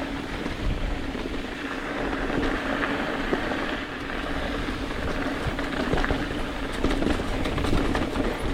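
Mountain bike rolling over a rough trail: a steady rattle of bike and tyres with many small knocks, over wind rumbling on the microphone.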